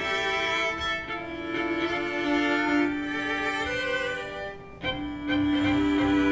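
Amplified string quintet of violins, viola and cello playing live, with long bowed notes. The sound thins briefly about three-quarters of the way through, then the full ensemble comes back in with a heavy low end.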